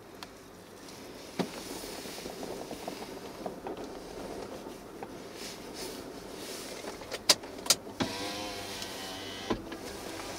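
Approaching CSX diesel freight locomotive and its double-stack train, a steady rumble that grows a little louder as it nears. It has a few sharp clicks, two of them close together about seven seconds in.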